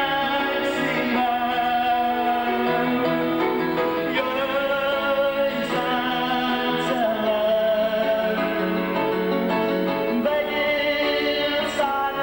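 A man singing a slow Hungarian praise song to his own electronic keyboard accompaniment, with held chords that change every few seconds.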